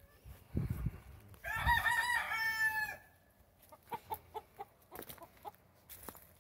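A rooster crowing once, a call of about a second and a half starting a little after a second in, followed by a run of about six short clucks.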